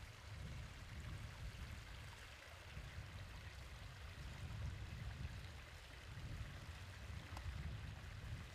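Faint creek ambience: a steady hiss of water trickling between rock pools, under a low, uneven rumble.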